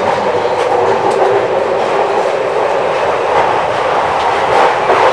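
Subway train running, heard from inside the carriage: a loud, steady rumble and rattle of wheels on track that grows a little louder.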